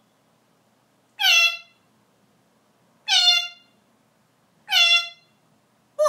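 African grey parrot giving three short, alike calls about two seconds apart, each dipping slightly in pitch at its end.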